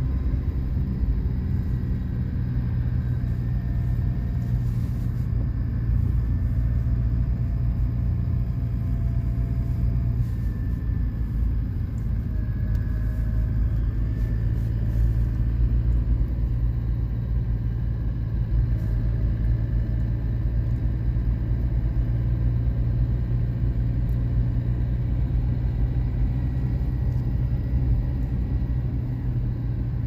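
Car driving along a road, heard from inside: a steady low rumble of engine and tyre noise, with faint wavering whines above it.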